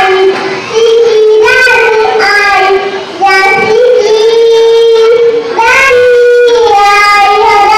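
A young girl's voice in loud, drawn-out sing-song lines, with long held notes broken by short pauses.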